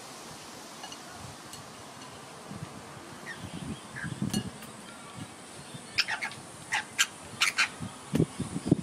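Rainbow lorikeets splashing as they bathe in a shallow bowl of water, with wing-flapping bursts of splashing. About six seconds in comes a quick run of about five short bird calls, then more splashing near the end.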